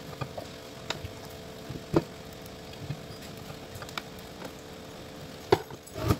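Clicks and knocks of a power-supply board on an aluminium mounting plate being handled and set down on a workbench, with the loudest knocks about two seconds in and near the end. A faint steady hum runs underneath.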